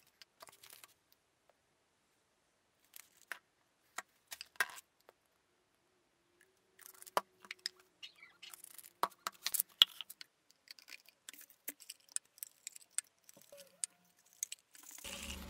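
Scattered light clicks and taps of plastic cups and a resin bottle being handled and set down on a bench and a kitchen scale while epoxy is measured out. There are quiet gaps between them, the clicks come thickest in the second half, and a longer, louder noise starts near the end.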